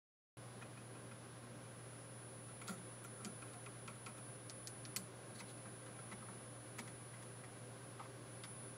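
Scattered light clicks and taps as the signal wires of a Perpetuum Ebner 99V valve amplifier are poked and shoved about with a thin stick, over a low steady hum and a faint high whine. The poking tests for the source of an oscillation in one amplifier channel, listened for at very low volume.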